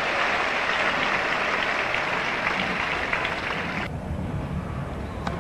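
Stadium crowd applauding after a point, a dense steady clapping that stops abruptly about four seconds in.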